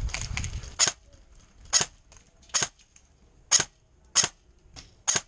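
Airsoft gun firing single shots, about seven sharp snaps at an uneven pace of roughly one a second, after a short rustle of movement at the start.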